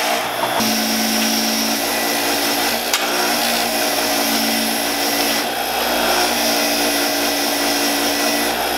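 Bench grinder with a wire wheel running steadily, with an engine valve pressed against the wheel: a steady motor hum under a scratchy hiss as the wire brushes scrub carbon buildup off the back of the valve.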